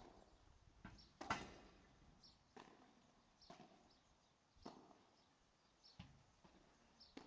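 Padel rally: a series of sharp pops of the ball struck by the solid padel rackets and bouncing on the court, about one a second, the loudest a little over a second in.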